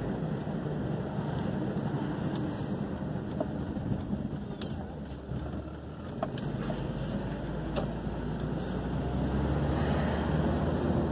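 Steady engine and road noise of a car, heard from inside its cabin while driving slowly. The low rumble eases a little about halfway through and builds again toward the end, with a few faint ticks.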